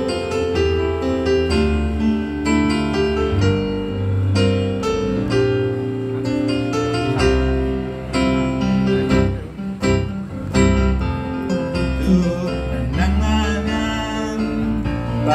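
Live amplified band music from a Javanese pop song, a keyboard carrying the melody over a bass line, with a singer's voice on the microphone at times.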